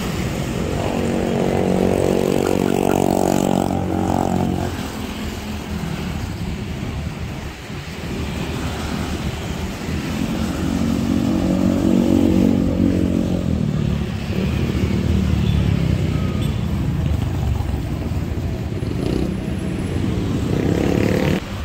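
Road traffic: motor scooters and cars passing close by, each engine swelling and fading as it goes past, loudest about two to four seconds in and again around eleven to thirteen seconds.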